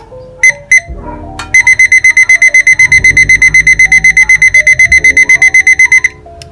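Digital kitchen timer beeping as its minute button is pressed: two short beeps, then a fast, evenly spaced run of beeps while the button is held and the minutes count up. The run stops about six seconds in.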